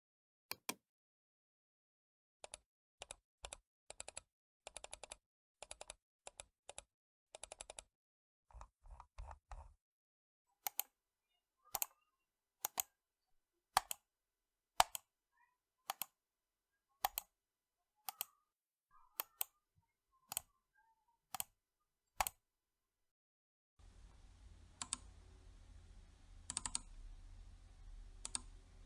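Computer mouse buttons clicking: quick clusters of clicks and double clicks at first, then single clicks about once a second. In the last few seconds the clicks sit over a steady background hiss and low hum.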